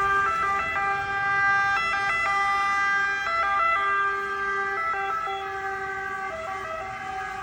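Italian two-tone emergency vehicle sirens stepping back and forth between a high and a low note, more than one sounding at once and out of step with each other. They grow fainter over the last few seconds.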